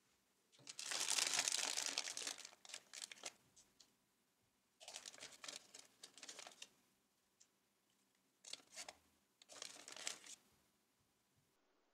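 Plastic marshmallow bag crinkling as hands reach in and pull marshmallows out, in three separate spells of rustling, the first the longest and loudest.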